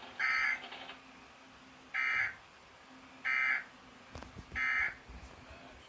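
Emergency Alert System end-of-message (EOM) data tones: four short, identical bursts of digital signalling tones, evenly spaced about a second and a half apart. They mark the end of the relayed alert message.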